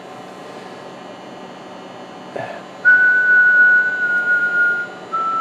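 A person whistling a steady single note into a CB radio microphone for about two seconds, as a modulation test watched on an oscilloscope; a second, slightly lower whistle starts near the end. A low steady hum lies under it.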